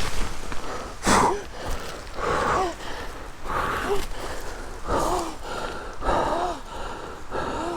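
A man breathing hard in loud, voiced gasps, about six of them, one every second or so, each with a short falling groan in it.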